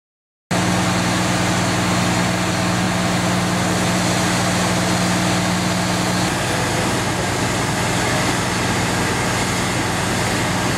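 Heavy diesel engine running steadily at idle, a constant low drone that cuts in suddenly about half a second in. Its hum changes slightly about six seconds in.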